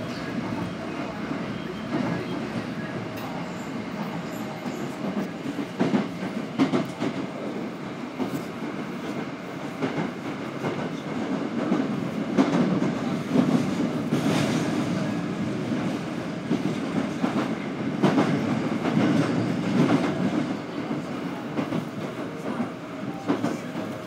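Inside a Midosuji Line subway car under way: a steady low rumble from wheels and motors, with irregular clacks as the wheels pass over rail joints.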